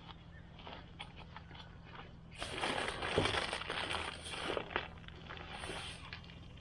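A fabric bag being opened and rummaged through by hand: rustling and crinkling with small clicks and knocks of things inside, loudest from about two seconds in until about four and a half.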